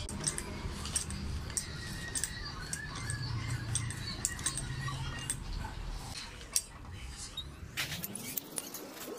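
Irregular metallic clicks and ticks from pliers working the header-plate tabs along a radiator tank, over a low background rumble.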